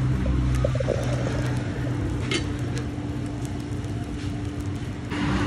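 Steady low hum of a running motor, with a few faint clicks.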